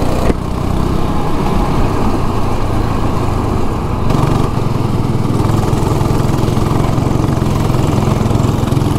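Go-kart's small engine heard from on board, running steadily at speed under a hiss of wind. A short click comes just after the start, and about four seconds in the engine note dips briefly and then picks up again.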